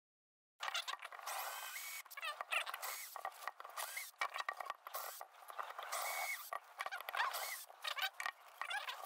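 Cordless drill boring out the rivets of a die-cast metal housing: the motor whines and the bit grinds on metal, its pitch wavering up and down. It starts about half a second in and breaks off briefly several times.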